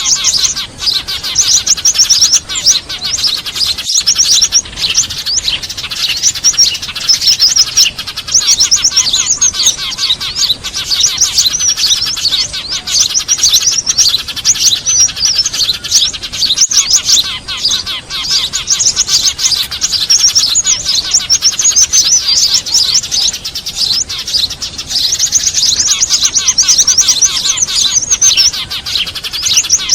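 Dense, loud, unbroken chattering of small birds: many rapid high chirps overlapping, tree sparrows and other small birds calling excitedly, as in a bird-lure recording.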